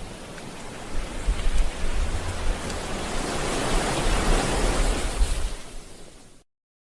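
Water sound effect: a steady rushing hiss with low rumbling underneath, fading away and cutting off near the end.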